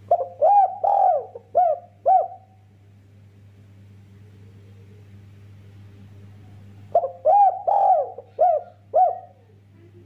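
Spotted dove cooing: two phrases of about five rounded coos each, one right at the start and another about seven seconds in.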